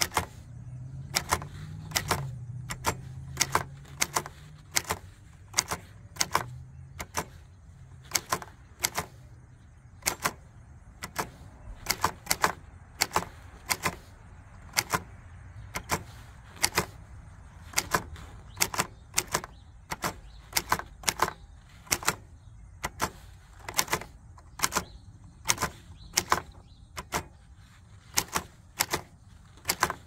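1943 Hermes Baby portable typewriter being typed slowly, key by key: sharp typebar strikes on the platen at about one to two a second, irregularly spaced.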